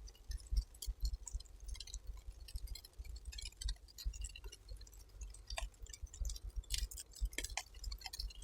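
Wind buffeting the microphone in uneven low rumbles, with faint, irregular crackling and ticking over it.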